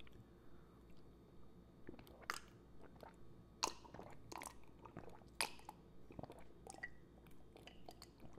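A person drinking down a glass of liquid: faint, irregular swallowing gulps and wet mouth clicks, a few of them louder.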